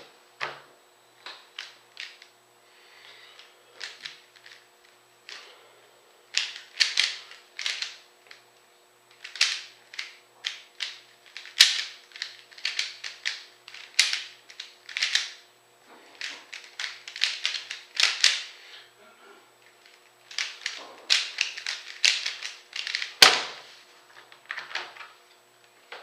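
Dayan Guhong 3x3 speed cube being turned fast by hand: rapid runs of plastic clicking and clacking in bursts, broken by short pauses, with one louder knock near the end.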